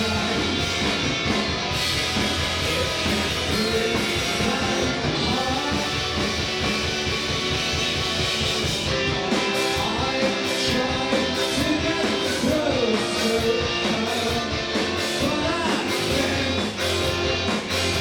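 Indie rock band playing live: guitars over a steady beat, with a voice singing.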